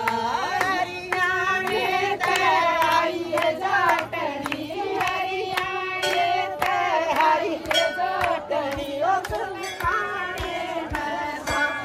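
Hindi devotional bhajan with a wavering sung melody, accompanied by steady, rhythmic hand-clapping in time with the beat.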